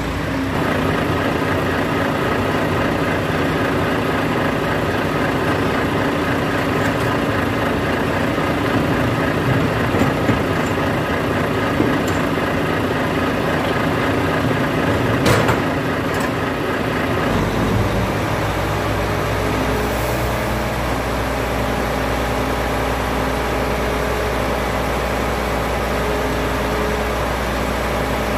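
Side-loader container truck's diesel engine running at raised revs to power the trailer's hydraulic crane arms while they lift a shipping container. There is a sharp metallic knock about 15 seconds in. About 17 to 18 seconds in the revs drop and the engine settles to a steady idle.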